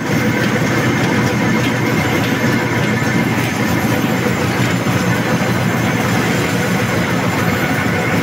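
Two-colour stack-type flexographic printing press, its colour stations gear-driven, running at about 147 metres per minute with a kraft paper web feeding over its rollers. It makes a steady, dense mechanical din with a few faint steady tones above it.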